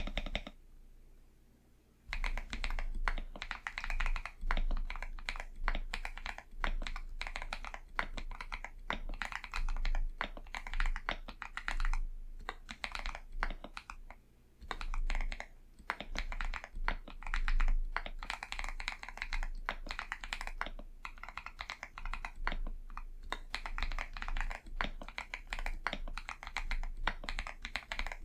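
Continuous fast typing on an Akko 5075B Plus mechanical keyboard fitted with Akko V3 Cream Blue switches, lubed and padded with tape and foam, giving a soft clacking. The typing starts about two seconds in after a brief pause.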